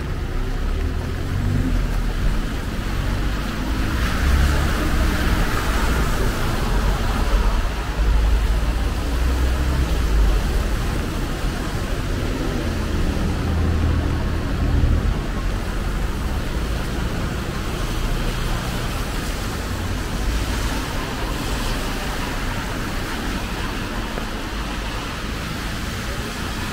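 City street traffic on wet roads: cars passing with a hiss of tyres over a steady wash of noise, with a low rumble that swells and fades through the first half.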